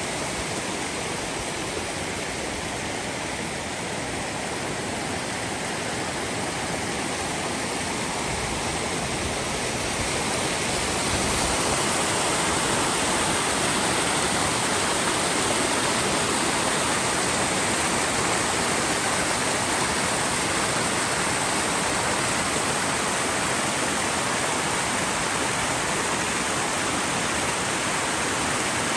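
Steady rush of flowing water, getting louder about ten seconds in and then holding steady.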